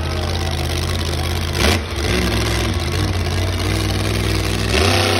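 Monster truck engine running hard with a low steady drone. There is a short sharp burst about a second and a half in, and the engine revs up louder and higher near the end.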